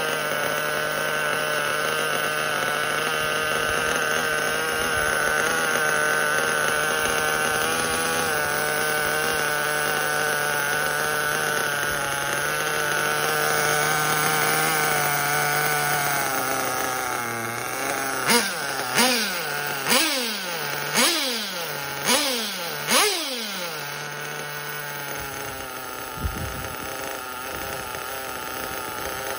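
Kyosho KE21 .21 nitro engine in an RC buggy idling steadily while its carburettor is being set with a screwdriver. About two-thirds in it is blipped six times in quick succession, each rev rising sharply and dropping back, then it settles at a quieter, lower idle.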